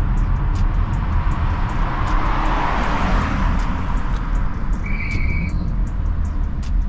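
Volkswagen Tiguan's turbocharged 1.4-litre four-cylinder petrol engine and tyres on the road while driving: a steady low rumble, with a swell of road noise about two to three seconds in and a brief high tone about five seconds in.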